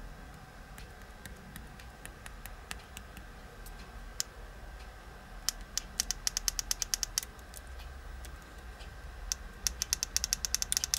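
Small push-buttons on a Geekvape Aegis T200 vape mod being clicked: scattered single clicks, then two quick runs of rapid presses, one in the middle and one near the end. The mod does not respond to them because its touchscreen has failed.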